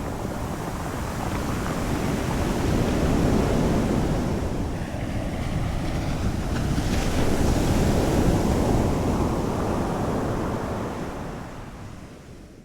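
Ocean surf: waves rolling in and breaking on the shore, swelling twice and fading out near the end.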